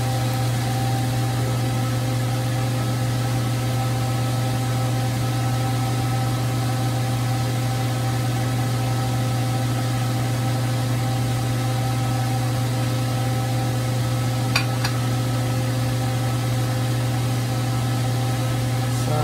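Steady low machine hum with a few fixed higher tones over an even hiss, unchanging throughout, like a kitchen fan or appliance motor running; one small click about three quarters of the way through.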